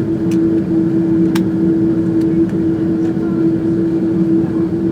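Airbus A330-200 cabin noise after landing: a steady engine and airframe hum with one constant drone, and a couple of faint clicks about a second apart.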